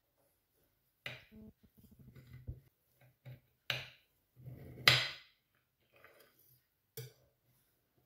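Metal cake server cutting through a baked plum cake and scraping and clinking against a ceramic plate. There are four sharp clinks with scraping between them; the loudest comes about five seconds in.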